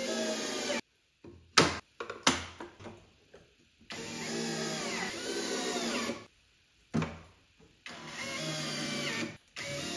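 Cordless drill/driver driving screws through metal drawer slides into a cabinet: the motor whirs in three short runs, rising in pitch as each run speeds up. Between the runs come a few sharp clicks, the loudest one about a second and a half in.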